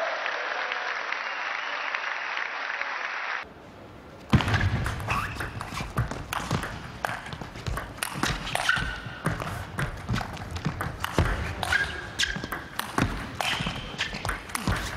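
A crowd in a hall cheering for the first few seconds. After a cut comes a table tennis rally: the ball clicks off the bats and the table in quick, irregular succession.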